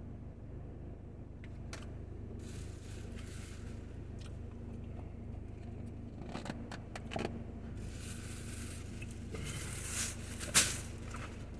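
Eating noises: rustling and crunching of fried food and its packaging in bouts, with several sharp clicks and one loud crackle near the end, over a steady low hum.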